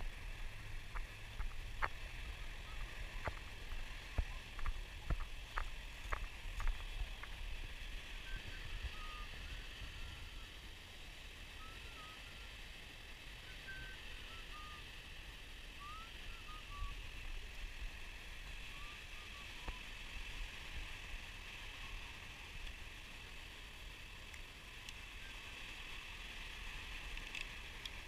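Outdoor beach ambience: wind buffeting the microphone and crunching footsteps on sand for the first several seconds, under a steady high hiss, with a few short bird chirps in the middle.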